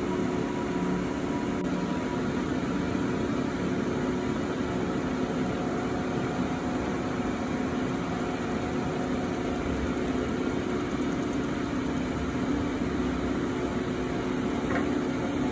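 A laser back-glass removal machine running, giving a steady mechanical hum with several held tones.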